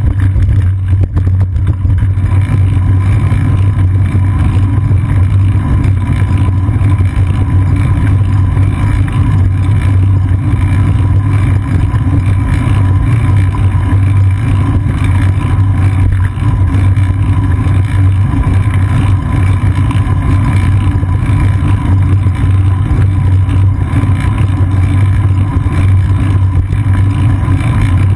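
Steady low rumble of wind buffeting and ride vibration picked up by a seat-post-mounted GoPro Hero 2 on a moving bicycle, loud and unbroken.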